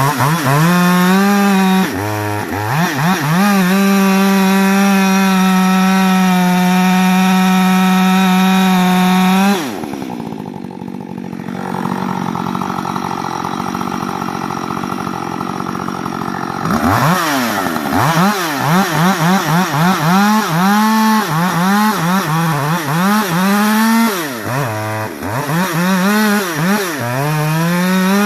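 Rebuilt Husqvarna 562 XP two-stroke chainsaw held at full throttle for several seconds, dropping to idle about ten seconds in. It is then revved up and down in quick blips and held wide open again near the end.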